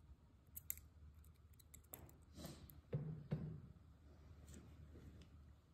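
Faint clicks and light handling noises from a steel needle holder and forceps working a suture through a silicone practice skin pad, with two sharper knocks about halfway through.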